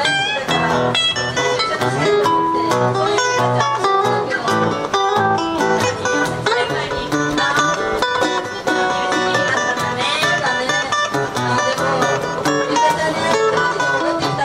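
Solo guitar played live: a continuous run of plucked notes and chords as background music.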